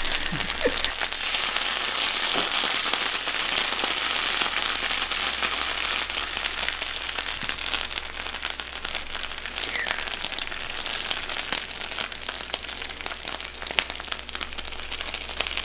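Okonomiyaki sizzling and crackling on a hot Presto electric griddle, a steady hiss full of tiny pops.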